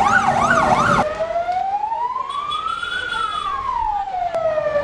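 Ambulance siren sounding. It goes in a fast yelp for about a second, then switches to a slow wail that climbs, falls and starts to climb again.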